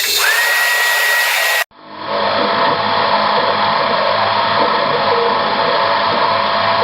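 Benchtop milling machine (BF20 Vario, CNC-converted) running. A whine rises to a steady pitch as the spindle comes up to speed. After an abrupt cut at under two seconds, steady machining noise runs on.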